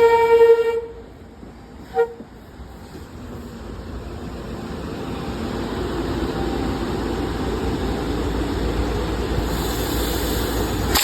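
SEPTA Regional Rail train horn: a long blast that ends about a second in, then a short toot about two seconds in. After that the train rolls into the station with a steady rumble that grows louder, and a hiss rises near the end.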